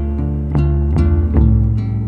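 Background music led by plucked guitar notes, a few notes a second, over sustained low bass notes.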